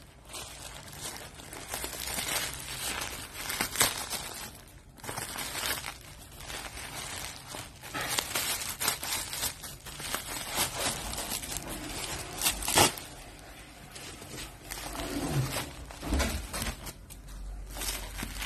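Plastic courier bag and bubble wrap crinkling and tearing as a parcel is pulled open by hand, with scattered sharp crackles; the loudest crackle comes about thirteen seconds in.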